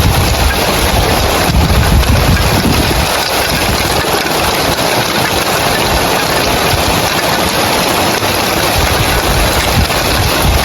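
Heavy rain drumming on clay roof tiles, a dense, steady hiss, with a deeper rumble underneath that is strongest in the first few seconds and then eases.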